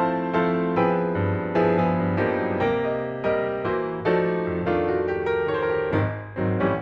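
Background piano music, notes struck in a steady gentle rhythm.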